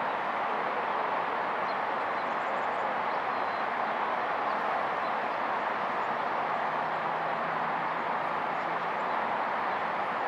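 Steady outdoor background rush with no distinct events, holding an even level throughout; a faint low hum comes in about six seconds in and fades out near nine seconds.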